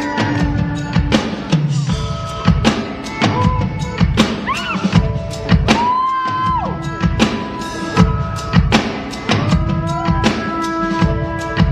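Live band music led by a drum kit playing a steady beat of kick and snare strikes, with held instrument notes sounding over it.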